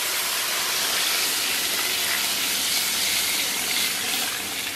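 Tap water poured in a steady stream from a metal bowl into a large wok of stir-fried beef, splashing into the pan; the pour eases a little near the end.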